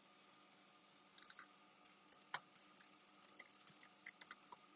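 Faint typing on a computer keyboard: a run of short, irregular key clicks that starts about a second in.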